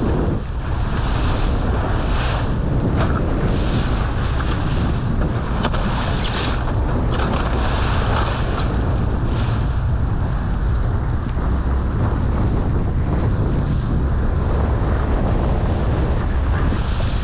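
Heavy wind buffeting the microphone of a small motorboat running fast through choppy sea, with a hiss of spray surging every second or so as the hull meets the waves.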